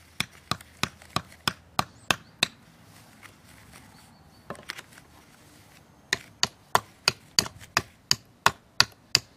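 Hammer driving a nail into a wooden board: a run of quick blows, about three a second, a short pause with a couple of light taps, then a second run of blows.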